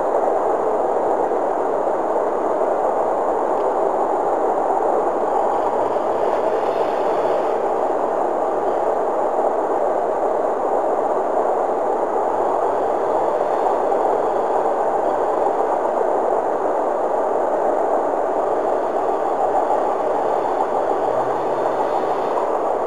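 Long freight train rolling by, a steady, even rumble of its cars on the rails.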